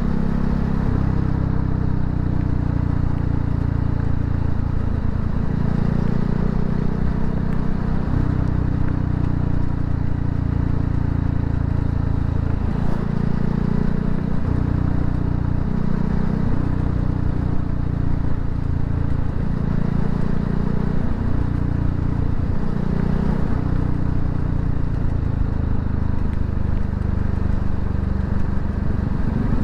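Voge 300 Rally motorcycle's single-cylinder engine running while riding, its pitch repeatedly climbing and dropping with throttle and gear changes.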